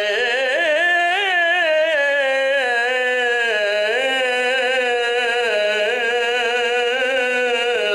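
A man's voice chanting one long, unbroken melismatic phrase into a microphone. The pitch turns in small wavering ornaments and sinks gradually over the first few seconds, then the phrase breaks off at the very end.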